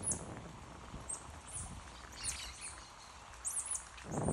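Central American squirrel monkeys giving short, very high-pitched peeping calls that slide down in pitch, about eight in a row at roughly two a second, over faint background noise.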